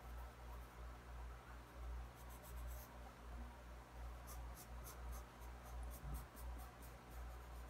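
Pencil scratching on sketchbook paper, with runs of quick short strokes about two seconds in and again from about four seconds in, over a low steady hum.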